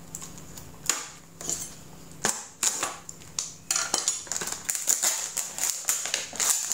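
Plastic packaging of sliced chicken being opened and handled, crinkling with a run of irregular short crackles and clicks.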